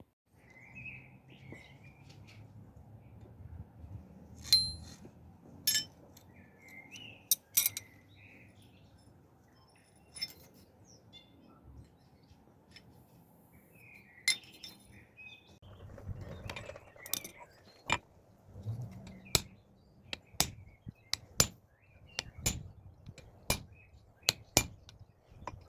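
Sharp clinks and taps, scattered at first, then coming about once a second in the second half, over a low background hum, with birds chirping now and then.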